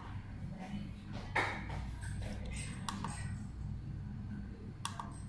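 A few short, sharp clicks while the recorder's on-screen menu is worked with a computer mouse, over a steady low hum.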